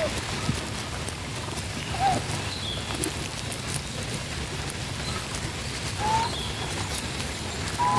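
Short chirping animal calls, a few seconds apart, over a steady outdoor hiss.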